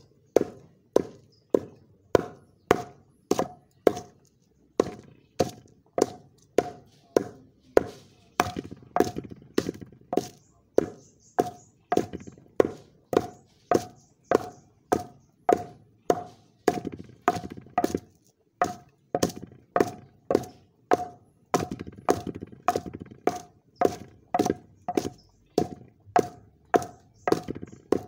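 Pestle pounding pepper in a mortar, steady strikes about two a second, each with a short ringing knock.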